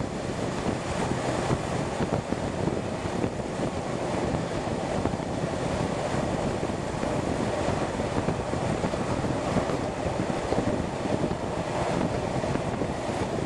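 Passenger train running steadily along the track: a continuous rumble of the carriage with wind rushing past the open window and buffeting the microphone.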